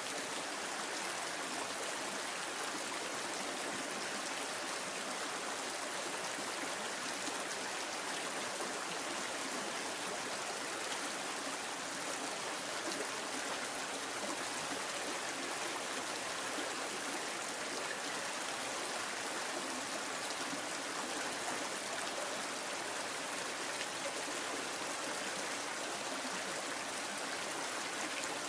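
Water of a stream running steadily, an even unbroken rushing sound.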